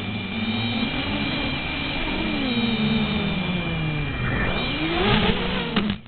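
XK X251 quadcopter's brushless motors whining, their pitch sliding up and down with throttle changes over a rush of air. A steady high tone stops about five seconds in, and the sound drops away sharply just before the end.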